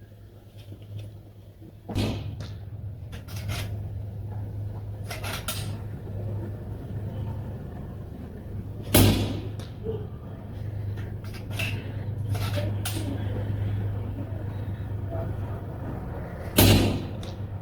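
Skout Epoch PCP air rifle firing three shots about seven seconds apart, each a sharp crack. Fainter clicks between the shots come from the side-lever bolt being cycled to load the next pellet.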